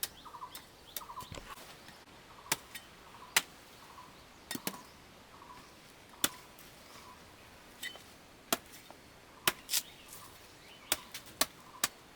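Scattered sharp clicks and knocks at irregular intervals, over a faint short chirp repeating about twice a second.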